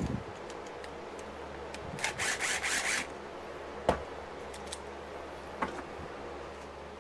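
Glued, taped wooden segment rings being handled and pulled apart: about a second of rasping, tearing noise a couple of seconds in, then a sharp knock and later a lighter click.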